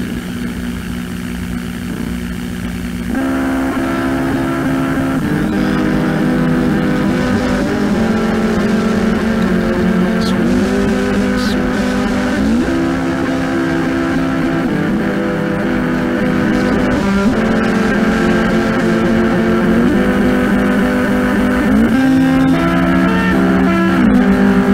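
Lo-fi, cassette-recorded noise/emo rock: held guitar chords droning over steady tape-like hiss. About three seconds in a fuller, louder layer comes in, with notes sliding up and down in pitch several times.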